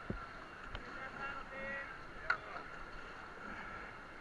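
Rushing whitewater of a river rapid running steadily around an inflatable raft, with a dull thump at the start and a sharp knock a little past halfway. A brief high call sounds faintly in the background.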